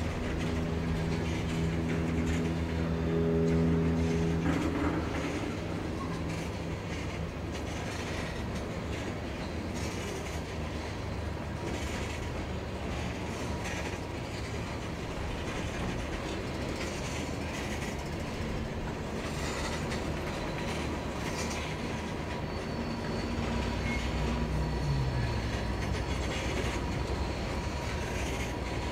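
Norfolk Southern freight train 67X climbing past, its freight cars rolling by with steady wheel clatter on the rails. A low engine drone sounds in the first few seconds, and a thin steady whine joins from about eight seconds in.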